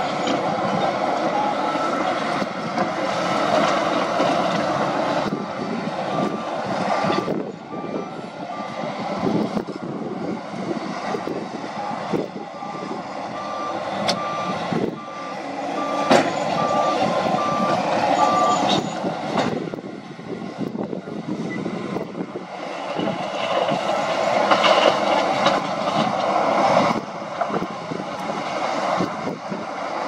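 Heavy diesel earthmoving machinery, a bulldozer and dump trucks, running steadily. A reversing alarm beeps evenly, about one and a half beeps a second: for a few seconds, then again for about six seconds mid-way. There are a few sharp knocks.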